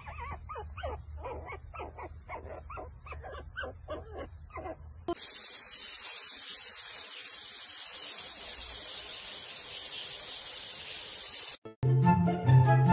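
An animal giving quick, repeated whimpering cries, about three a second, over a low hum. Then a steady, loud hiss of spraying water, and near the end, music with a flute comes in.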